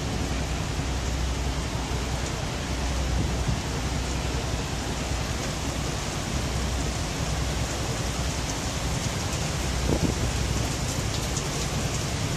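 Heavy rain falling steadily, with a low rumble underneath. A few closer, sharper drop taps come near the end.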